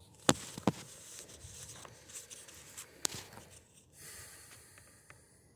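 Handling noise from the hand-held camera: rustling and rubbing, with sharp knocks about a third of a second in, just under a second in and about three seconds in.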